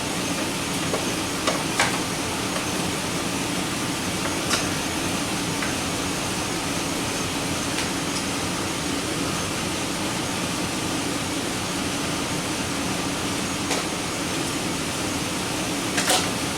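GMC Sierra V8 idling, a steady running noise, with a few light clicks as a scope test cable is handled and connected.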